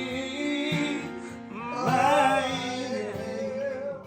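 Background music: a song with a singer holding long notes over instruments. The singing swells loudest about two seconds in.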